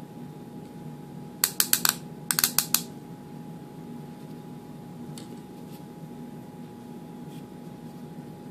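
Two quick runs of about five sharp clicks each, about a second and a half and two and a half seconds in, from the hard 3D-printed plastic parts of a trundle wheel being handled, followed by a few faint clicks. A steady low hum runs underneath.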